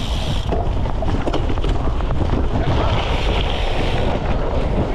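Wind buffeting the microphone of a camera mounted on a cyclocross bike's seat, under a constant low rumble, with the bike clattering in many short knocks and rattles as it rides over rough ground.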